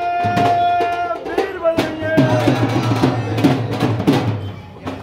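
Music with drums. A held tone breaks off about a second in, then steady, repeated drum strikes play over a bass line.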